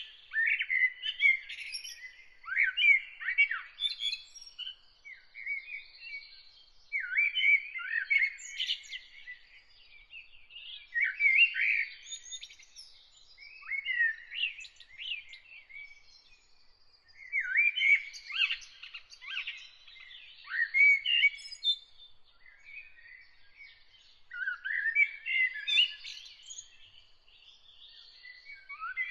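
Songbird singing: short, varied phrases of quick whistled and twittering notes, repeated every few seconds with brief pauses between them.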